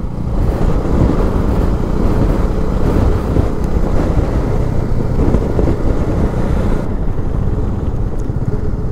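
Motorcycle riding along at a steady pace, its engine running under a continuous rush of wind noise. The higher hiss eases a little about seven seconds in.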